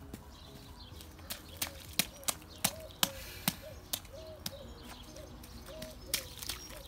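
A small child's rubber boots stepping and stomping on wet, muddy ground: a run of sharp steps, about three a second, with a pause near the end.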